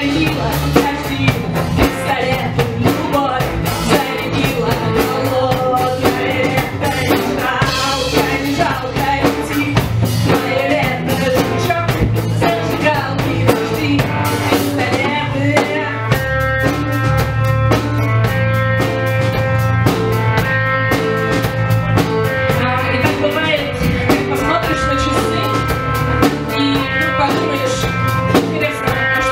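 Live rock band playing: a woman singing over electric guitars and a drum kit.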